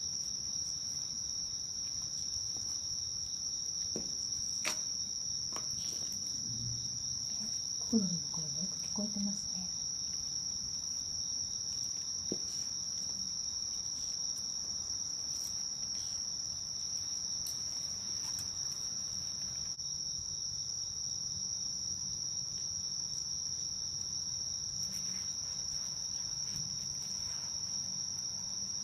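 Crickets trilling in one steady, high, continuous tone, with a brief low, voice-like warble about eight seconds in.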